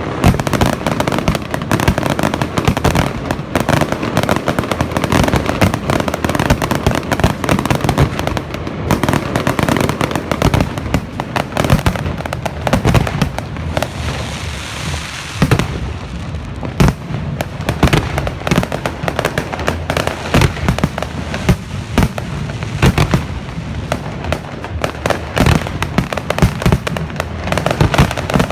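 Aerial fireworks display: a continuous barrage of bangs and crackling from many shells bursting, thinning briefly about halfway through.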